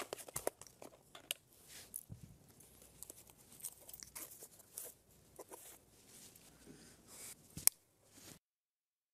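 Faint rustling and handling noises of clothes and bags being moved about, with scattered light clicks and one sharper click near the end; then the sound cuts out to dead silence about eight seconds in.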